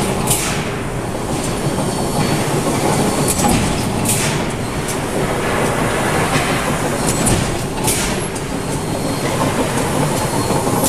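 Komatsu 1600-ton hot forging press running on a production line: a loud, steady mechanical rumble with a short hiss of air about every four seconds, in step with the press cycle.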